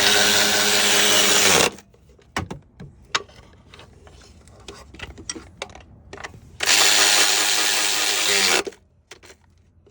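A power tool running in two bursts of about two seconds each, with a steady whine over a loud hiss, one at the start and one about six and a half seconds in.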